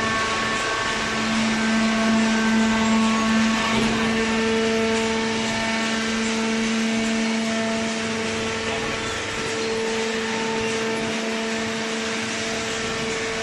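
Hydraulic cardboard baler running: a steady machine hum with a hiss of noise, its tones shifting in strength now and then but never stopping.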